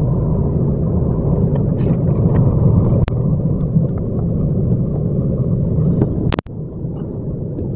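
Steady rumble of engine and road noise inside a moving car's cabin. A sharp click comes about three seconds in, and a little past six seconds there is a brief loud crackle and the sound drops out for a moment.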